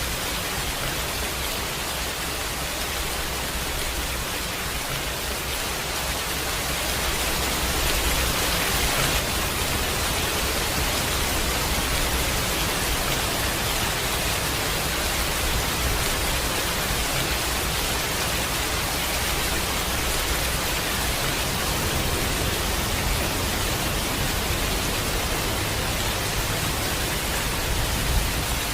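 Rain falling steadily, a dense even hiss, with a low rumble underneath. It grows slightly louder about seven seconds in.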